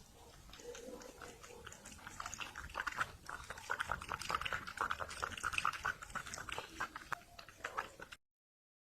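Sounds of a pet animal: quick, irregular clicks and smacks that grow louder about two seconds in and cut off suddenly near the end.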